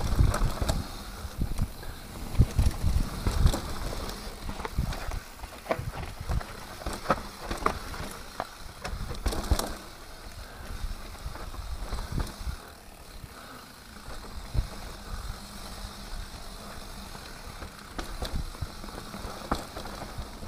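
Mountain bike riding down a dirt trail: tyres rolling over dirt and leaves, with irregular knocks and rattles from the bike over bumps, busiest in the first few seconds.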